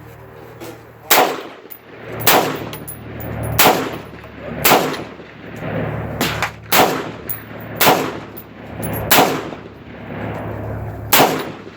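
Smith & Wesson AR-15 rifle fired shot by shot, nine shots at uneven gaps of roughly a second, each with a short echoing tail.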